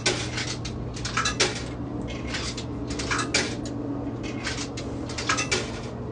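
A series of short metallic clinks and clicks at a vending machine, coming in small clusters about once a second, over a steady low hum.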